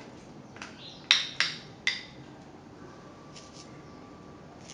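A spoon knocking against a small glass bowl as cubes of butter are scraped out into a glass mixing bowl of sugar: four sharp taps in the first two seconds, then two faint ones about a second and a half later.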